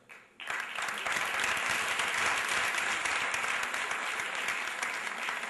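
Audience applauding, a dense crackle of many hands clapping that starts suddenly about half a second in.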